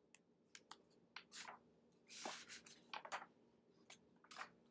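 Near silence: room tone with a scattering of faint, short clicks.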